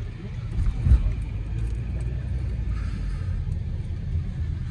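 Car's engine and tyre rumble heard from inside the cabin as it moves slowly, with a low thump about a second in.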